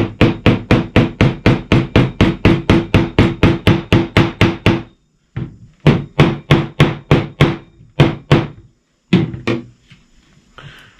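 Hammer tapping upholstery staples flat into a hard oak seat frame through jute webbing. The staples would not seat fully in the tough wood. Quick blows come about four a second, each with a short low ring; there is a pause about five seconds in, then another run, then two last blows.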